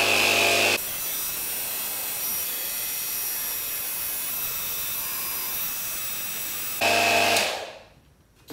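AstroAI 12V portable tire inflator running as it pumps up an inflatable pool float. There is a loud buzzing hum at the start and again about seven seconds in, with a softer, hissier steady sound between, and it fades out near the end.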